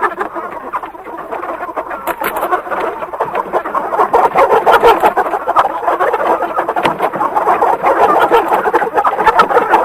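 A flock of chickens clucking together in a dense, continuous chatter, louder from about four seconds in.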